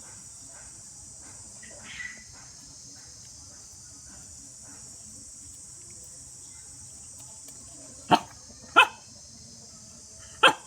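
A dog barking: three loud, sharp barks near the end, the first two close together and the third about two seconds later, after a softer short bark or yelp about two seconds in.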